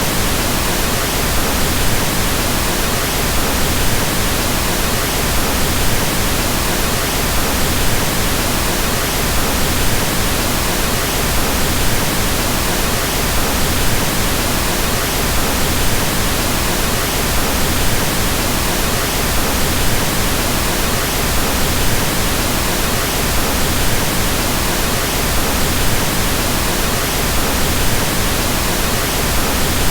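Pink noise: a steady, even hiss across the whole range, fuller in the bass than white noise, with no change over time.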